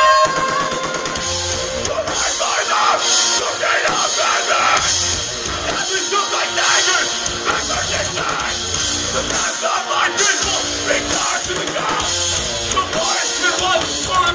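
Metalcore band playing live and loud: heavy, distorted electric guitars over a drum kit, heard from within the crowd.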